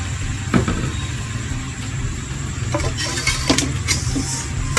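Pot of anchovy broth at a rolling boil: a steady low rumble with a handful of sharp pops and clicks, most of them in the second half.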